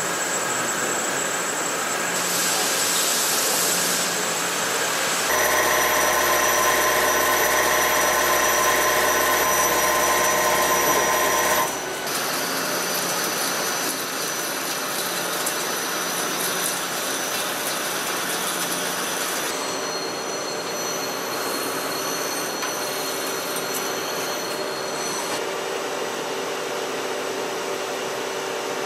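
Hi-TECH 230AL CNC turning center cutting metal, a steady machining whine with several fixed tones over a hiss. The sound changes abruptly a few times as it moves through different operations: internal finish boring of carbon steel, a louder stretch with a low hum, live-tool drilling, and broaching a titanium part near the end.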